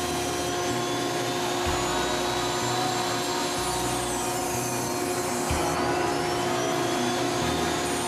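Foredom flex-shaft rotary tool running steadily with a steady whine, its carbide burr grinding into a white cedar decoy head.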